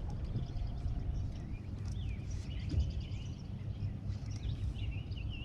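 Birds chirping: a series of short, quick calls starting about two seconds in, over a steady low rumble.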